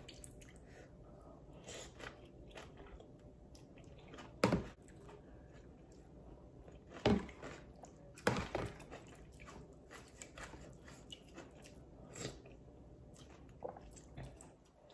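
A person eating noodle soup: chewing, with slurps of noodles and broth. A few short, louder sounds come about four and a half, seven and eight seconds in.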